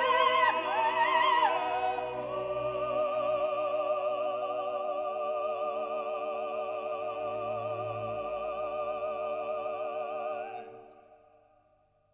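Background music: operatic singing with orchestral accompaniment. The voice moves through a few notes, then holds one long final note with a wide vibrato, which fades out near the end.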